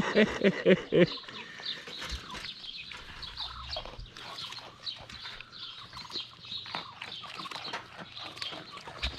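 A person's voice chants a quick run of short sing-song syllables in the first second. Then farmyard poultry chirp and cheep again and again, over scattered small clicks.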